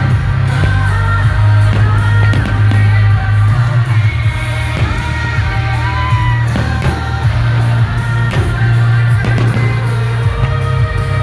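Loud music with a singing voice over a heavy bass.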